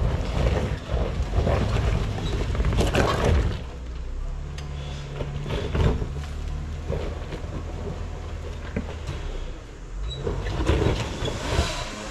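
Jeep Wrangler JK engine pulling steadily up a rocky climb, with tires on 35-inch rubber crunching and knocking over loose rock. The crunching and knocking are loudest in the first few seconds.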